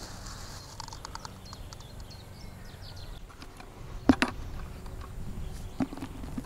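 Quiet outdoor ambience with scattered small clicks and a sharp double knock about four seconds in.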